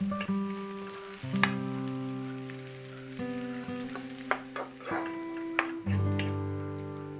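Sliced onions and torch ginger flower sizzling in hot oil in a wok, stirred with a metal spatula that scrapes and clinks against the pan several times. Background music with held chords runs underneath.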